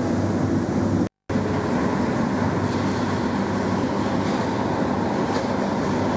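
Steady din of construction-site machinery with a low hum, broken by a brief silent gap about a second in.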